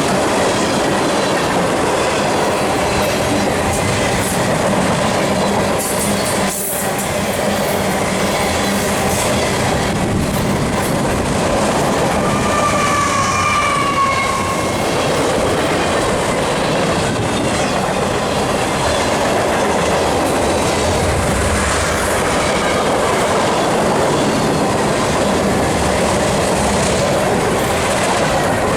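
Freight cars of a long manifest train rolling past, with a steady noise of steel wheels on rail. About halfway through there is a brief high-pitched wheel squeal.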